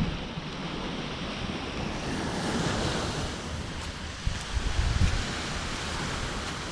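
Gulf surf washing onto a sandy beach, one wave swelling up about two to three seconds in, with wind buffeting the microphone in low gusts.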